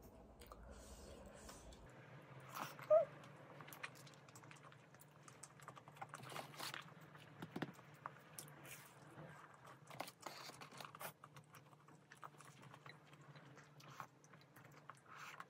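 Faint close-up chewing and biting of snack food, with scattered light clicks of chopsticks and spoon against the dishes, and one short, louder sound about three seconds in.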